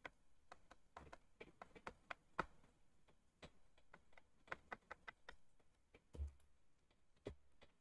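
Faint, irregular taps and clicks of a stylus pen on a tablet screen during handwriting, with a couple of slightly louder knocks.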